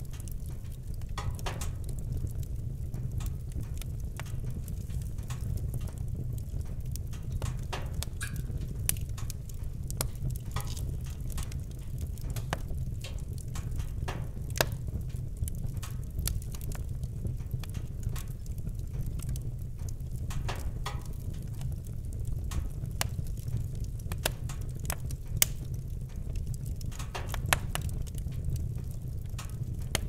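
Wood fire crackling, with irregular sharp pops, a few of them louder, over a steady low rumble.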